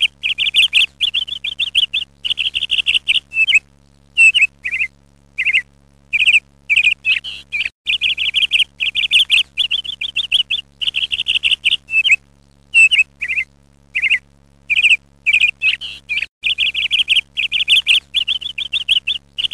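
Ducklings peeping: runs of rapid, high-pitched peeps alternating with single down-slurred peeps, with short pauses between.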